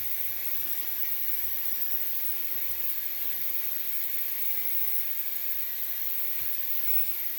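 Ultrasonic parts cleaner running, a steady electric hum and hiss with a few fixed tones and no change in level.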